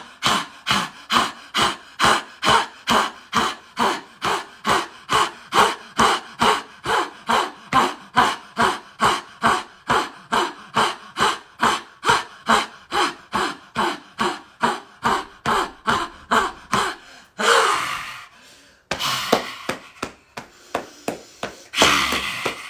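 A woman's forceful, rhythmic 'ha' exhalations, about two a second, in a qigong purging breath exercise. Near the end they give way to a long breathy exhale and a few heavy, irregular breaths.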